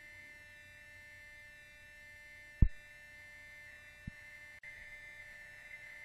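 Steady electrical hum from a nest-cam microphone, broken by one sharp low thump about two and a half seconds in and a fainter one about a second and a half later.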